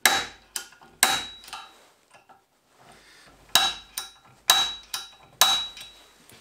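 A center punch struck into steel angle iron clamped in a bench vise, marking a hole for drilling. The strikes are sharp metallic clicks with a brief ring. There are five hard ones, two near the start and three in the second half, with lighter ones in between.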